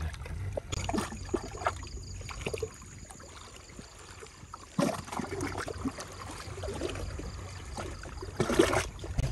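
Shallow sea water lapping and trickling among shore rocks, with a few scattered knocks.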